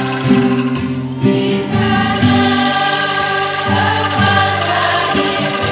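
Adult women's choir singing while the same performers shake bamboo angklung. The angklung give sustained, quivering pitched notes that change in steps under the voices.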